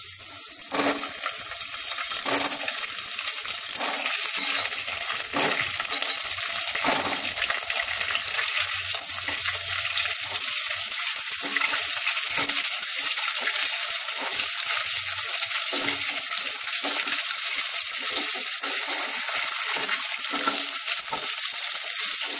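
Whole boiled duck eggs frying in hot mustard oil in a kadai: a steady, loud sizzle. In the first seven seconds, five sharp splashes about one and a half seconds apart as the eggs go in, then lighter knocks as a wooden spatula turns them.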